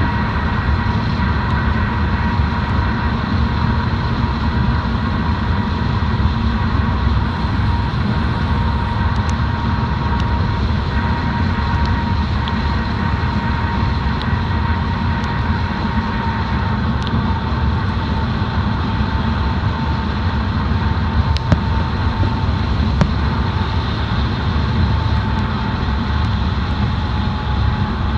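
Steady rumble of a moving car, with a faint steady whine above the low road and engine noise.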